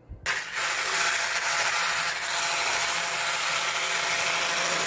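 Handheld electric whisk running steadily in a plastic bowl, creaming soft room-temperature butter until it turns paler; it starts suddenly about a quarter second in.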